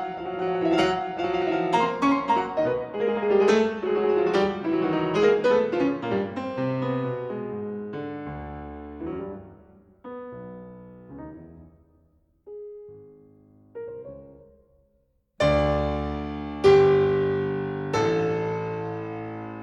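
Background piano music: a run of quick notes that slows and thins into a few single notes with a short pause, then loud held chords struck about three-quarters of the way through.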